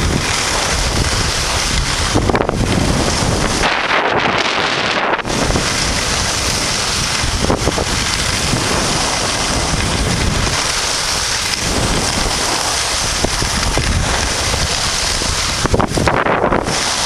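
Wind buffeting the camera microphone while skiing downhill, a steady loud rush, with the hiss of skis sliding over packed snow.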